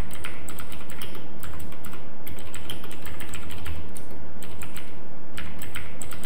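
Rapid, irregular keystrokes on a computer keyboard as a command line is typed, with a couple of brief pauses between words, over a steady low hum.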